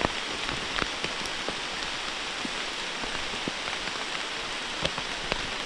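Steady rain falling, with scattered louder drops ticking close by.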